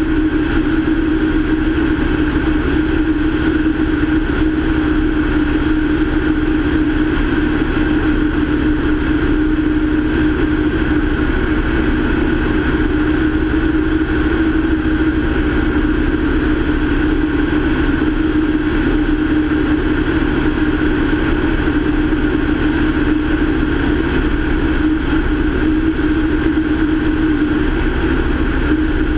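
Light aircraft's piston engine and propeller running steadily in level flight: a constant, unchanging drone with a strong steady hum, mixed with wind noise on a camera mounted outside the plane.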